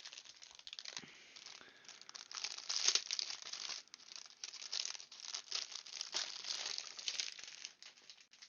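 Plastic packaging crinkling and crackling as it is handled, in irregular bursts, loudest about three seconds in.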